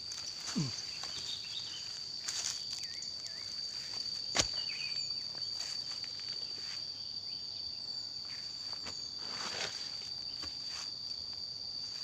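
A steady, high insect drone, one unbroken tone, under the footsteps of a walker in sandals on a rocky, overgrown trail, with rustling of brushed vegetation. A single sharp knock comes about four seconds in.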